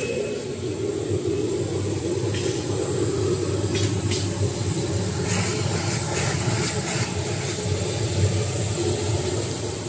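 Two-line facial tissue folding machine running: a steady mechanical rumble with a high hiss over it, and a few brief rattles in the middle.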